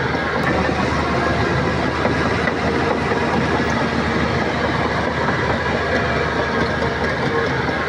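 Shantui crawler bulldozer working: its diesel engine running steadily together with the rattle of its steel tracks.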